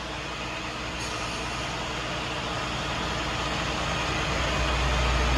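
Tow truck driving on the road: a steady low engine rumble with road noise, getting louder near the end.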